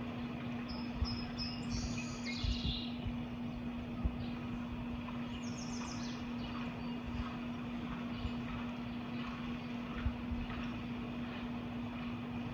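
Small birds chirping, with a quick run of high notes stepping down in pitch about one to three seconds in and another short run around halfway, over a steady low rumble with a constant hum.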